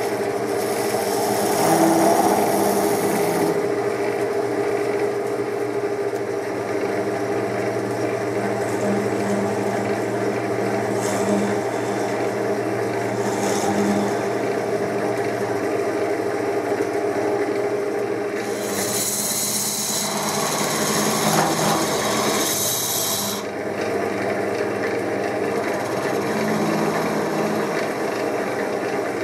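Wood lathe running with a steady motor hum while a hand-held turning tool cuts the tip of a small wooden spinning top. The cutting is a scraping hiss that swells about two seconds in and again for several seconds past the middle.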